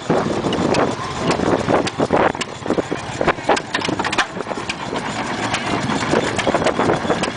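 Several hit-and-miss stationary gas engines running together: an irregular clatter of sharp firing pops and clicks. Each engine fires only now and then and coasts on its flywheels between power strokes.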